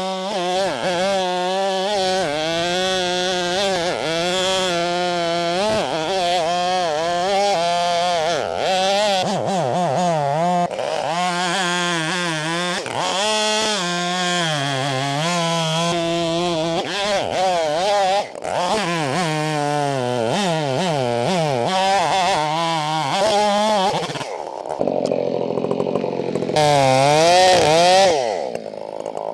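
Husqvarna 572XP two-stroke chainsaw with a 24-inch bar cutting through a large pecan log, its engine pitch rising and dipping as it works under load. Near the end the revs drop off.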